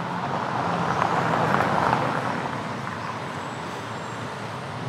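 A road vehicle passing by on the street: its noise swells about a second in and fades away after two seconds, over a low steady hum.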